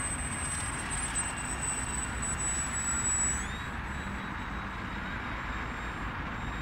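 Small electric RC plane's brushless motor giving a high, steady whine that drops slightly in pitch a little over three seconds in, over a steady low rumble.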